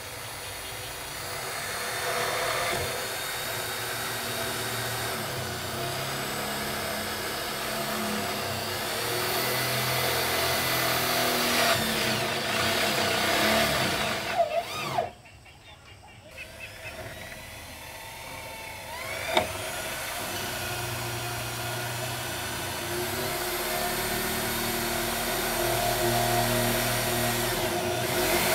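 Power drill driving roofing screws through corrugated iron sheets, its motor whining up and down in repeated runs. There is a short pause about halfway through, followed a few seconds later by a sharp click.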